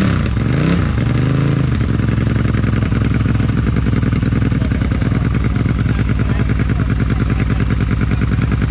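Motorcycle engine revved briefly a couple of times, then settling into a loud, steady idle with an even pulsing beat.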